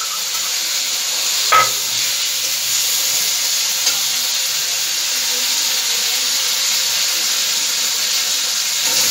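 Potato pieces and drumstick (moringa) pods sizzling in hot oil in an iron kadhai as ground spice paste goes in and a steel spatula stirs them, a steady hiss. A single metal clink comes about a second and a half in.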